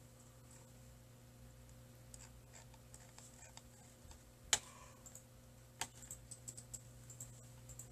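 Scattered faint clicks and taps over a steady low hum, with one sharper click about halfway through and a quick run of small clicks near the end.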